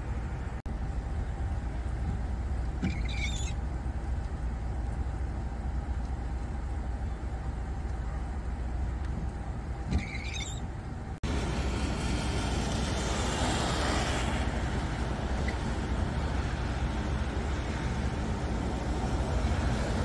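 Outdoor ambience after a storm: a steady low rumble with hiss that changes abruptly at a cut about eleven seconds in to a brighter, louder hiss. Two short high chirps come about three seconds and ten seconds in.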